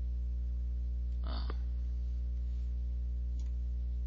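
Steady low electrical mains hum on the recording, with a short soft breath-like noise about a second in and a faint click near the end.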